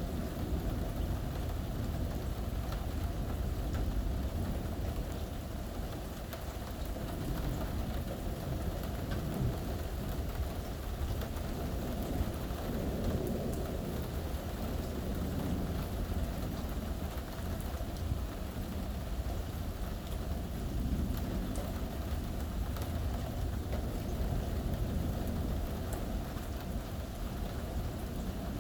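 Steady rain falling during a thunderstorm, an even hiss with a continuous low rumble underneath.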